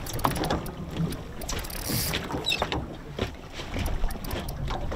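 Water slapping against the hull of an anchored boat, with wind buffeting the microphone and scattered small knocks.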